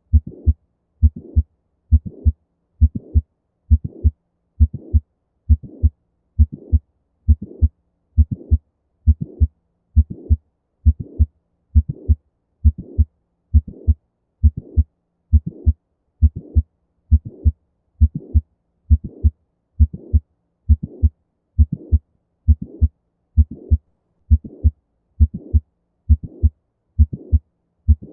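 Heart sounds of mitral valve prolapse: a steady, regular heartbeat a little over once a second, with the mid-systolic click and late systolic murmur typical of the prolapsing mitral valve.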